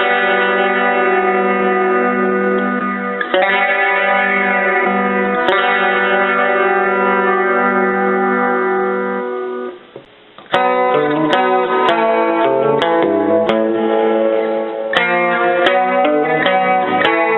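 Electric guitar played clean through a Roland Jazz Chorus combo amplifier. Three chords are struck and left to ring, then there is a short break about ten seconds in, followed by quicker picked notes and chords.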